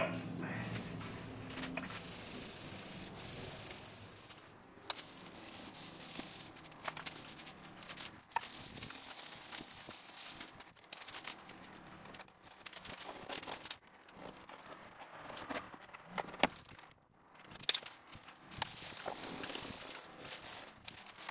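An abrasive scouring pad scrubbed by hand over a weathered wooden tabletop, in irregular rasping strokes with short pauses. A few sharp clicks fall among the strokes.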